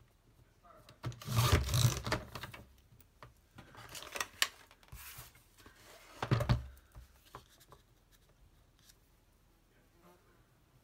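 Sliding paper trimmer cutting paper: the blade carriage is run along its rail twice, a longer stroke about a second in and a shorter one about six seconds in. Between the cuts there is quieter rustling as the paper is moved and repositioned.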